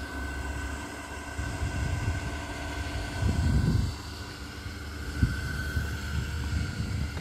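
Wind buffeting the microphone in gusts, a low uneven rumble that swells about three and a half seconds in, with a faint steady high tone beneath it.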